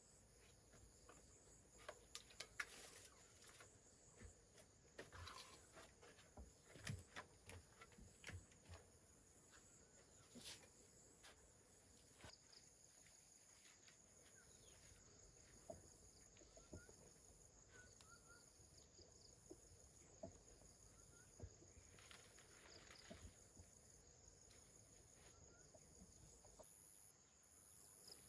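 Faint rural ambience: a steady high insect drone with a high pulsing chirp repeating about once a second, and scattered soft clicks and knocks.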